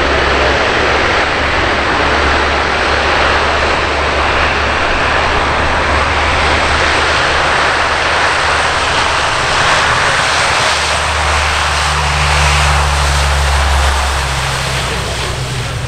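Four Allison T56 turboprop engines and propellers of a C-130H Hercules running at high power as it accelerates on its takeoff roll, a loud steady propeller drone that eases slightly near the end.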